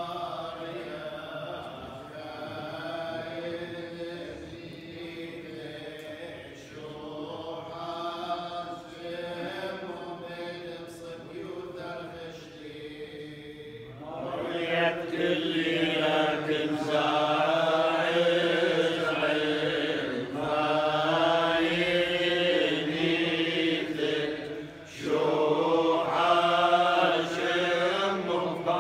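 Chaldean funeral prayers chanted by a group of voices in unison, long held lines moving slowly up and down in pitch. About halfway through the chant becomes louder and fuller, and it breaks briefly near the end before the next line begins.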